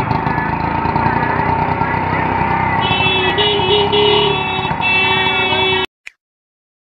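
Busy street noise: traffic and passers-by, with some pitched tones like horns coming in and out from about halfway. It cuts off abruptly about six seconds in, followed by a single short click and then silence.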